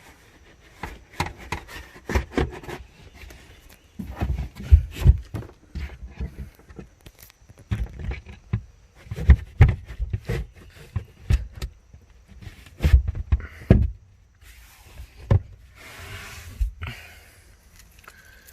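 Irregular knocks and thumps of a car's interior trim panel being handled and pushed back into place, with a few seconds of scraping and rubbing near the end.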